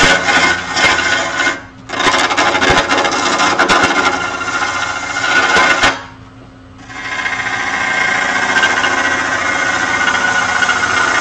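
A handheld turning tool cutting the outside of a spinning green-wood bowl blank on a wood lathe: a loud, continuous scraping cut over the lathe's steady hum. The cut breaks off twice, briefly about one and a half seconds in and for nearly a second around six seconds in, leaving only the lathe running.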